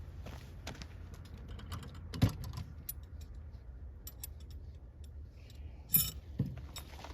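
Small metallic clicks and clacks of a 12-gauge shotgun's breech being worked by hand, with a sharper knock about two seconds in and two more near the end. The breech is binding and won't open after an overpressure load.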